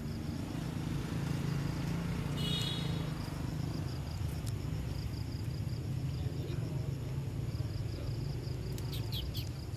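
Outdoor treetop ambience: a steady low rumble under insects calling in a faint, even pulse. A brief high call comes about two and a half seconds in, and a few sharp chirps near the end.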